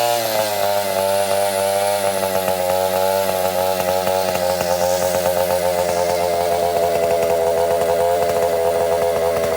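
Stihl 070 two-stroke chainsaw running at high revs, its pitch sagging slightly just after the start and then holding fairly steady.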